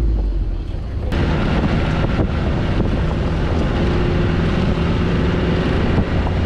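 Wind buffeting the microphone over the low rumble of an off-road jeep on the move. Before that, about a second in, a sudden switch from a plainer engine drone to the louder wind noise.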